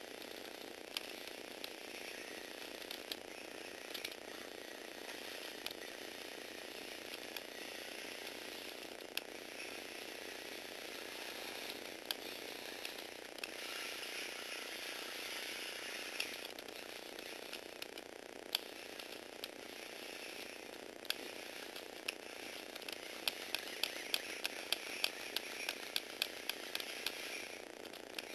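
Small electric motor driving a Lego Technic plastic gear train, running with a steady whir and scattered sharp clicks. Near the end the clicks come in a quick run.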